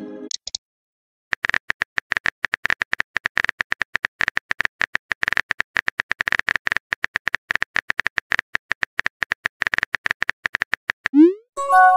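Rapid, even tapping of a phone texting app's simulated keyboard clicks as a message is typed out, several taps a second. Near the end comes a quick rising swoosh followed by a short chime as the message is sent.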